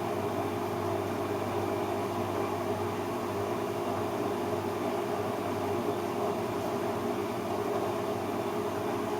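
Bosch washing machine running with a steady motor hum and drum noise, its drum damping shock absorbers freshly repaired.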